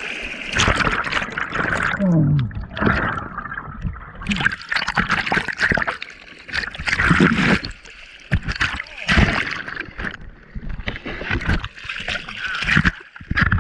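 Seawater splashing and gurgling around a surfboard as a surfer paddles, in irregular loud bursts every second or two.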